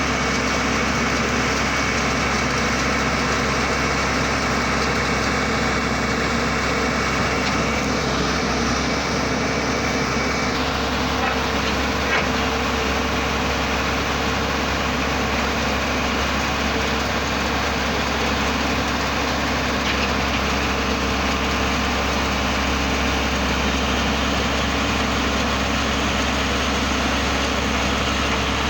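Engine of an earth drilling machine running steadily, with a high whine in it that drops away about ten seconds in.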